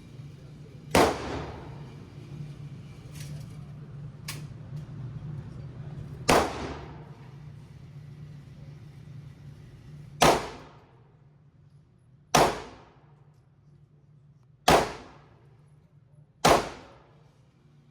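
Six gunshots from an indoor shooting range, coming at uneven intervals, each a sharp report with a short echoing tail. A steady low hum runs under the first shots and fades about halfway through.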